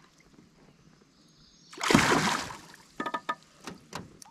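A hooked yellow bullhead catfish splashing at the surface as it is pulled up to the boat, one short burst of water noise about two seconds in. A few sharp ticks follow near the end.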